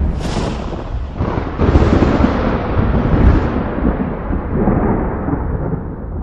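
Deep booming sound effect: a sudden crack near the start and a second, heavier one about a second and a half later, each trailing into a long low rolling rumble that slowly fades.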